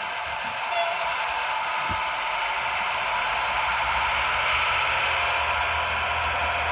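Low hum of a G-scale model RhB Tm 2/2 shunting tractor running on garden railway track. It sets in about two and a half seconds in and grows as the model approaches, over a steady hiss of background noise, with a single knock just before it begins.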